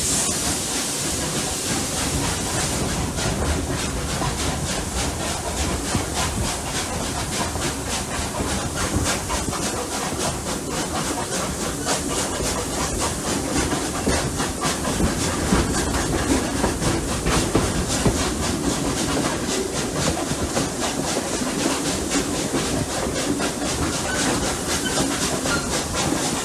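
Double-headed steam locomotives Rx207 and 621 working hard uphill, a rapid run of exhaust beats with steam hissing and wheels clicking over the rail joints. A loud high hiss of steam dies away about three seconds in.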